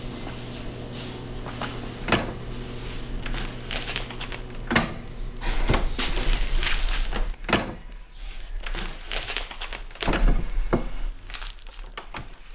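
Irregular metal clunks, knocks and scrapes from working a cast-iron hand press with a top handwheel, mixed with paper being handled. The louder knocks come about six seconds in and again about ten seconds in.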